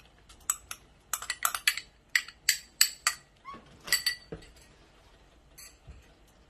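A spoon clinking and scraping against a small glass bowl as minced garlic is knocked out into a pan: a quick run of a dozen or so sharp clinks, some briefly ringing, which stop about four seconds in.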